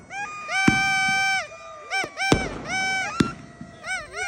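Fireworks bursting overhead with three sharp bangs, over repeated high-pitched tones that rise, hold and fall, some held for about half a second and others short and quick.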